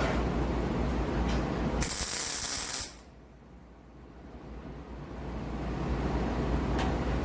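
MIG welder laying weld on a steel wheel-arch patch panel: an uneven crackle that stops abruptly about three seconds in, then builds back up as the next weld starts.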